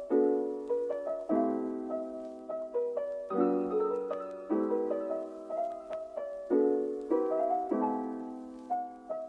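Gentle background piano music: soft chords struck about once a second and left to ring, with melody notes above.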